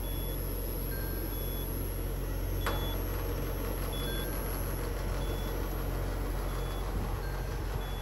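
Bryant Evolution inverter outdoor unit running with a steady low hum and whoosh, with a faint short beep repeating about every second and a half and one light click partway through.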